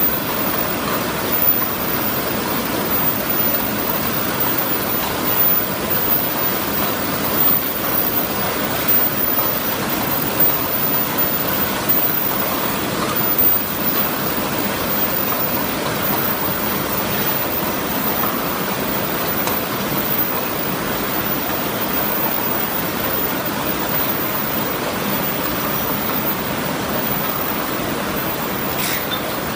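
Steady, even noise of paper cup forming machines and their cup conveying equipment running.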